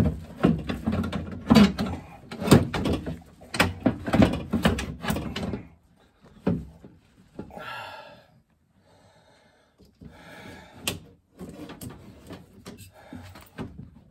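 A 9PA Porsche Cayenne's inner door frame, carrying the window glass and regulator, knocking and rattling in quick clunks and taps as it is wrestled loose from the door. The knocking stops for a few seconds about halfway and then comes back in lighter taps.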